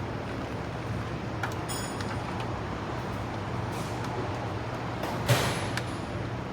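Steady low mechanical hum, with a few rustles and knocks from handling, and a sharp click with a short scrape about five seconds in.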